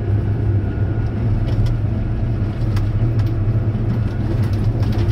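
Massey Ferguson 6480 tractor driving along, its engine droning steadily with no change in speed, with scattered light rattles and knocks.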